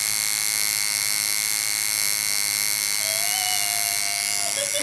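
Tattoo machine running with a steady, high-pitched buzz as the needle works into skin.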